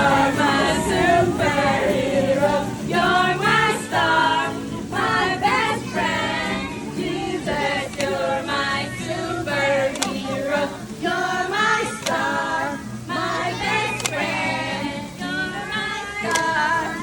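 A group of children singing together as a choir, one sung phrase after another.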